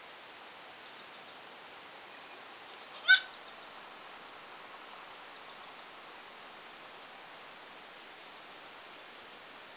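A single short, loud, high animal call about three seconds in, over a steady outdoor background with faint high chirping trills recurring every couple of seconds.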